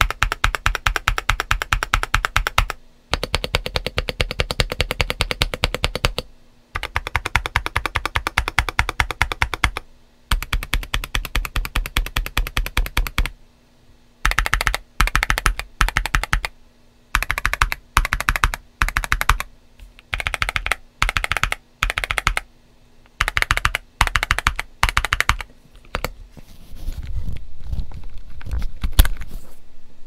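Typing on a GAS67 mechanical keyboard with Gazzew U4T tactile switches and MG White SA ABS keycaps, in a build modded for a crunchy sound (tape, IXPE sheet, polyfill). Fast runs of keystrokes a few seconds long with short gaps give way to bursts about a second long, and the clacking turns deeper and denser near the end.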